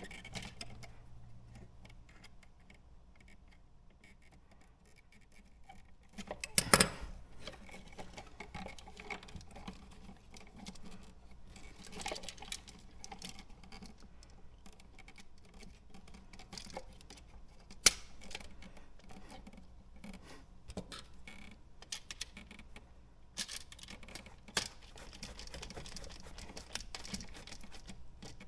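Small clicks, scratches and rattles of hand work on house wiring and a new wall outlet, with a sharp knock about seven seconds in and another near eighteen seconds.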